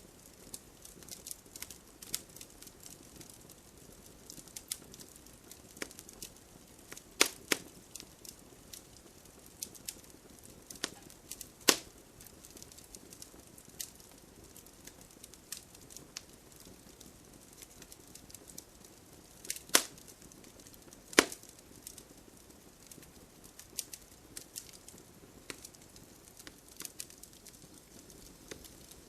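Crackling wood fire: irregular small snaps and pops over a soft hiss, with a few sharper, louder pops.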